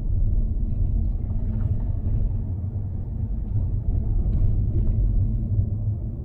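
Steady low rumble of a car's engine and tyres, heard from inside the cabin while driving, with a few faint ticks.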